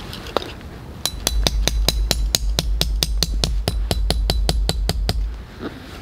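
A metal tent stake being hammered into the ground: a quick, even run of about two dozen light ringing taps, about six a second, stopping about a second before the end.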